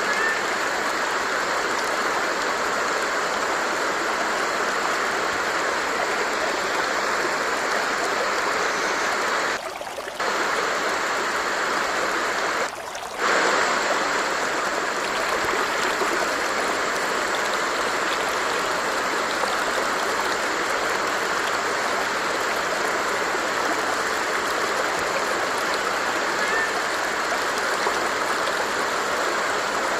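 Stream water running with a steady, even rush. The sound drops away briefly twice, about a third of the way in.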